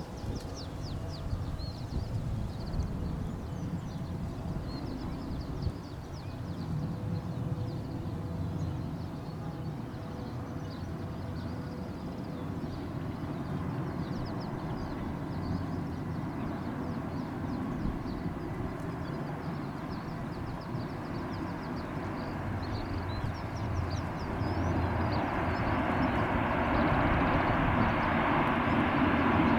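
Gusty wind buffeting the microphone, with the engines of an approaching aircraft growing steadily louder over the last several seconds.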